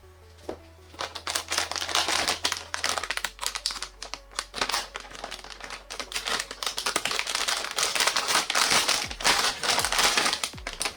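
Plastic packaging crinkling and rustling as it is handled, in two longer spells of quick crackles.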